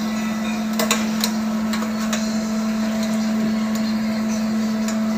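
A steady mechanical hum of running kitchen equipment, with a few light clicks of metal tongs against a stainless steel roasting tray in the first two seconds as the beef is turned.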